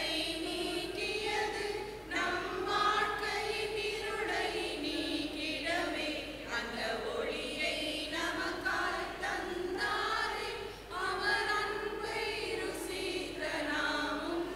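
Church choir, mostly women's voices, singing a Christmas carol in sustained phrases.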